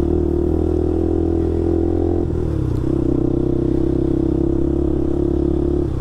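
KTM RC 200 motorcycle's single-cylinder engine running while riding, a steady engine note that changes about two seconds in, then holds steady again.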